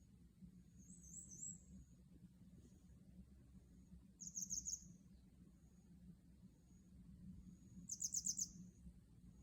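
A small bird calling: three short bursts of rapid, very high chirping notes, a faint one about a second in and louder ones near the middle and near the end.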